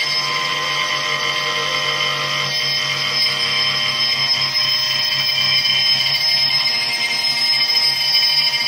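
Spindle of a Chinese 6040 CNC router driving a 6 mm four-flute carbide end mill through steel in an adaptive clearing pass: a steady whine of several high tones mixed with the noise of the cut. The raised spindle speed and shallower stepdown are still not giving a good cut.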